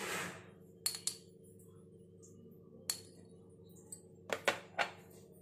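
A metal spoon clinking against a small glass bowl about six times, in light separate taps, while red chili powder is spooned out onto raw chicken pieces. A faint steady hum runs underneath.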